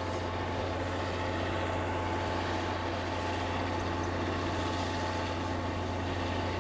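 Diesel locomotive engine running with a steady low drone as the locomotive moves slowly through the yard.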